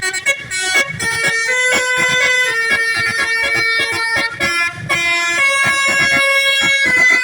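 Indonesian bus basuri telolet horn, a multi-note musical air horn, playing a tune of held notes that change pitch every half second or so.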